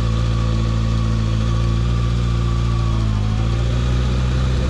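Motorcycle engine running steadily at low revs in first gear as the clutch is let out slowly and the bike rolls off. Its note shifts slightly in pitch about three seconds in.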